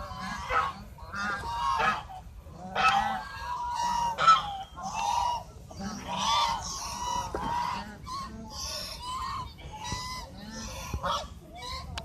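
A flock of white domestic geese honking, with many short calls overlapping in quick succession throughout.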